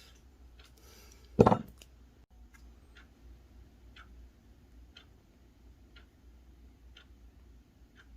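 Faint, regular ticking about once a second, with one loud, short knock about a second and a half in.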